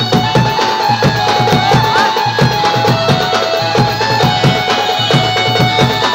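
Loud South Asian folk-style dance music with a quick, steady drum beat under a held melody.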